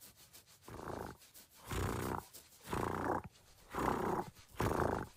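Cartoon dog's voice making five low, buzzy rumbling sounds, about one a second, while its forehead is scratched.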